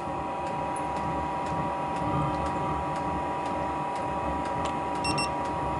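Diesel space heater running steadily: a fan hum with a steady whine, and the diesel fuel pump ticking at about two pulses a second as it runs at low output.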